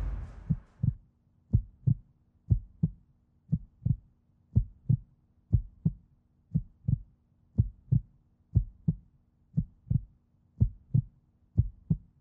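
Heartbeat sound effect: paired low thumps, lub-dub, repeating about once a second over a faint steady low hum, as the last of the music dies away in the first second.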